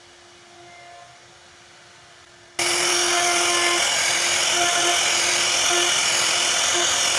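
CNC router spindle cutting into a wooden bed panel: a loud, high, steady whine with a hiss of cutting that starts suddenly about two and a half seconds in. Before that there is only a faint steady hum.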